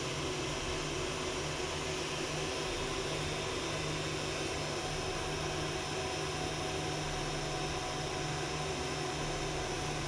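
Heat gun running, its fan blowing a steady hiss with a low hum, while it shrinks heat shrink tubing onto a soldered wire joint.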